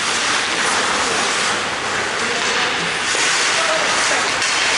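Steady hiss of ice hockey skates scraping and carving across the ice during play, echoing in the rink, with louder swells now and then.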